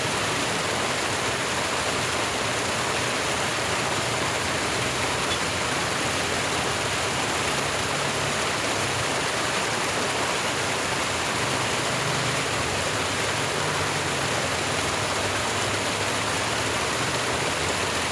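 Steady rush of water flowing in an irrigation ditch.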